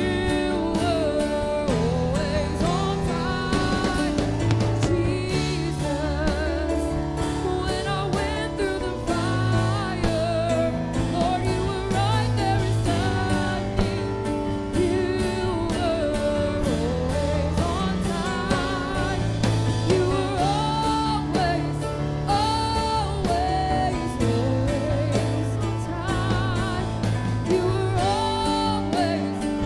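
Gospel worship music: a voice singing a slow melody with vibrato over instruments with a steady bass line.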